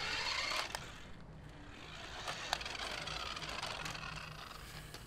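Toy-grade RC car's small electric motor whining and its tyres rolling on concrete on a slow takeoff run. The sound is louder at first, drops away about a second in, then builds again, with a few light clicks.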